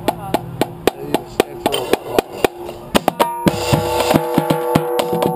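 Marching drumline: a steady pulse of sharp strikes, about four a second, then about three seconds in the full line comes in with the cadence. Tenor drums, bass drums and crash cymbals play together.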